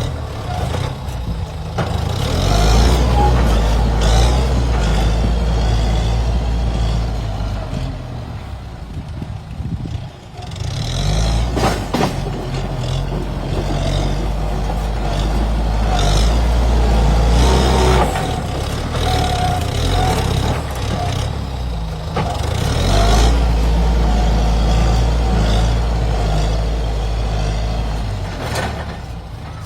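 Kubota M7040SU tractor's four-cylinder diesel engine running, its low rumble swelling and easing several times as the load or throttle changes. A sharp click sounds about twelve seconds in.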